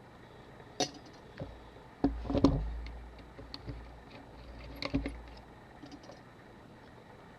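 Small hand tools and camera parts clicking and clinking as they are handled on the work bench, with a louder cluster of knocks and a dull bump about two seconds in and another sharp click about five seconds in.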